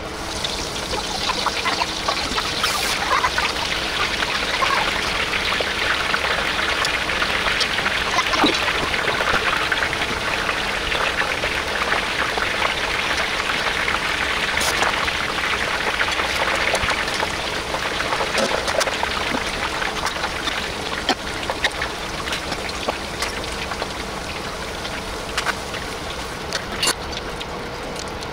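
Hot oil sizzling and crackling in a deep-frying wok as food fries, a dense spatter of fine pops that eases off a little near the end.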